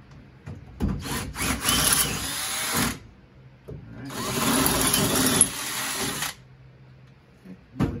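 Cordless drill boring through a car's sheet-steel floor pan to open a roll-bar bolt hole to size, in two runs of about two seconds each. A short knock comes near the end.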